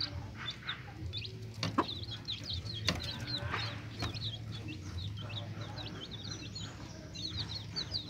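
Caged wild buttonquail chirping: many quick, high, short chirps one after another, with two sharp taps about two and three seconds in, over a steady low hum.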